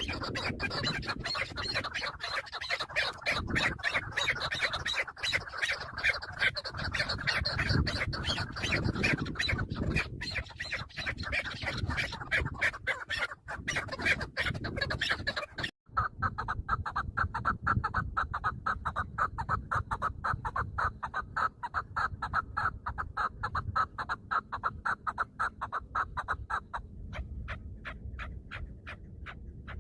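Chukar partridges calling: long runs of rapid, repeated clucking 'chuk' notes. There is a sudden break about sixteen seconds in, after which a single, more even run of calls goes on and grows fainter near the end.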